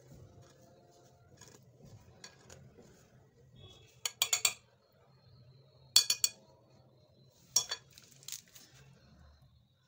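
A metal potato masher and fork clinking against a glass mixing bowl. Soft mashing and scraping of a potato-and-starch mash comes first. Then come sharp clinks that ring briefly: a quick cluster about four seconds in, another about six seconds in, and single clinks near seven and a half and eight seconds.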